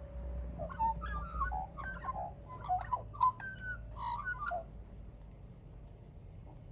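Australian magpie warbling: a quick run of short, varied whistled notes and chirps for about four seconds, then stopping, over a faint steady hum.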